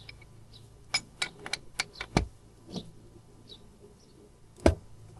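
A run of sharp metallic clicks and knocks from hand tools and steering parts being handled, several in quick succession, then one louder knock near the end, over a low steady hum.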